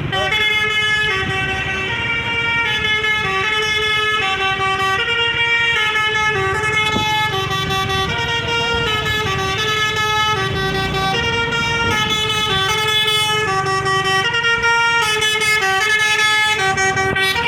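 Basuri V3 'om telolet' bus horn on a PO Haryanto bus playing a melody: several horn tones sound together as chords, stepping from note to note every half second or so with hardly a break, over a low rumble.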